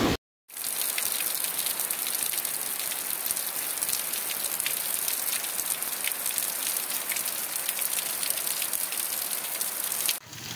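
Heavy rain pouring onto waterlogged ground: a steady dense hiss dotted with many small drop splashes, starting after a brief silent gap.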